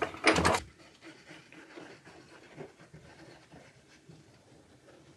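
A short, loud breathy vocal sound right at the start, then faint scattered taps and rustles of hands working with a glue bottle and wooden drawer parts.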